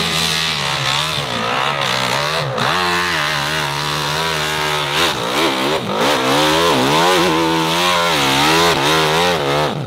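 Dirt bike engine revving hard under load on a steep hill climb, its pitch surging up and down again and again as the throttle is worked. The sound cuts off suddenly near the end.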